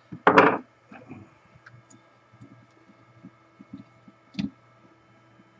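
Knocks and clatter of a Milwaukee portable band saw's parts being handled as a part is worked back into place: a loud clattering knock about half a second in, lighter taps after it, and another sharp knock near the end.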